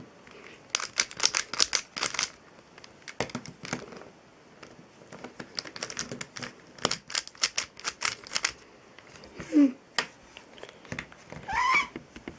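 YuXin 3x3 speed cube, its mechanism lubricated, being turned quickly by hand: fast runs of plastic layer-turn clicks in bursts with short pauses. Two brief sliding tones near the end.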